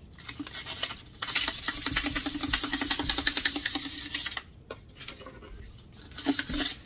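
Hand scuff-sanding of an MDF jewelry box: a sanding pad rubbed rapidly back and forth across the wood, in a run of about three seconds starting about a second in, then a pause, then a brief burst again near the end.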